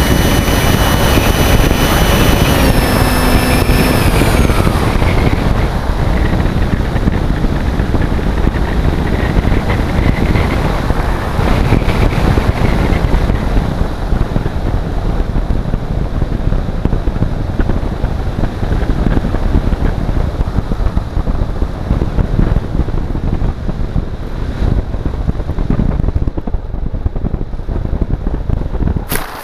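Onboard recording from a model aircraft: the motor's whine drops in pitch and fades out about four seconds in as the throttle is cut. After that, steady wind rushes over the onboard microphone through the glide down to the field, and it cuts off abruptly near the end.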